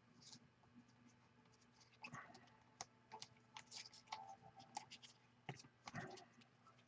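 Faint, irregular clicks and scrapes of trading cards being flicked through and slid against one another in the hands.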